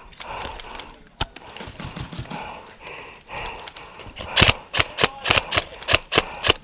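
Airsoft guns firing: scattered faint shots at first, then about four seconds in a quick string of loud single shots, roughly three to four a second.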